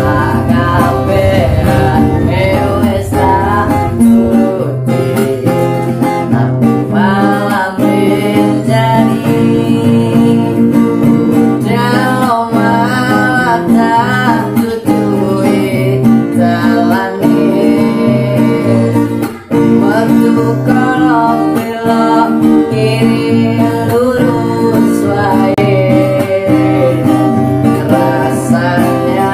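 A man singing a pop ballad while strumming a nylon-string classical guitar.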